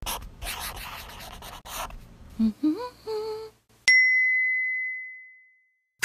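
Logo sting sound effects: about two and a half seconds of hiss-like noise, a short hum that rises in pitch, then a single bright ding about four seconds in that rings on and fades out.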